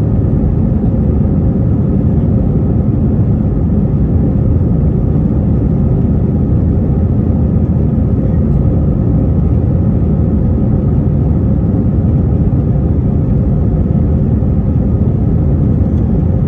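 Inside the cabin of an Airbus A321-231, its twin IAE V2500 turbofans and the airflow make a loud, steady roar during takeoff, with no change in pitch.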